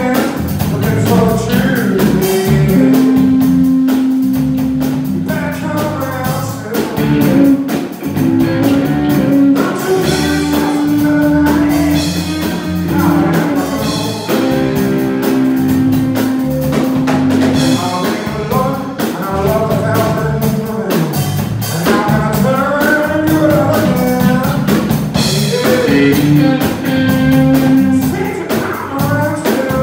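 Live blues-rock band playing: electric guitar, bass guitar and drum kit, with a lead melody line of long held and bending notes on top.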